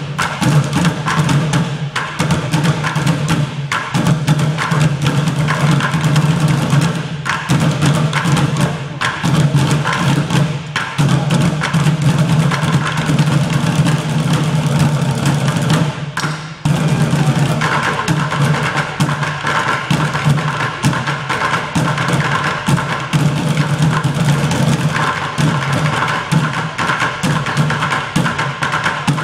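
A high school band playing live: held notes from the wind players over busy drum and percussion strokes, with a short break about halfway through.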